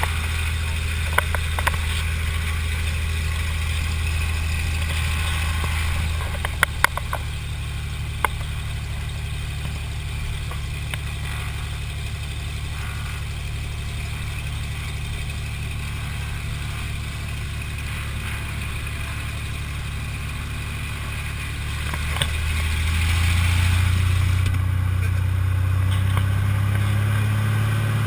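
Cessna 182RG's six-cylinder Lycoming piston engine and propeller heard from inside the cabin, running steadily at low power while taxiing, with a few sharp clicks. The engine note eases a little about six seconds in, grows louder about two-thirds of the way through, and starts rising in pitch near the end as power comes up for the takeoff roll.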